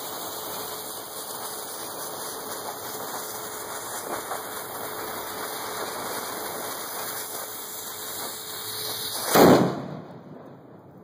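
Burning fuse hissing steadily, then about nine seconds in a single loud boom as a homemade thunder mug goes off. The mug is a solid steel cylinder with a drilled chamber packed with two teaspoons of black powder, and the boom dies away within a second.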